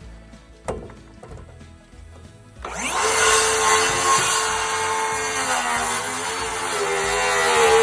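Electric power saw spinning up about three seconds in, its motor whine rising quickly, then cutting wood with a steady, loud whine that sags and wavers in pitch under load.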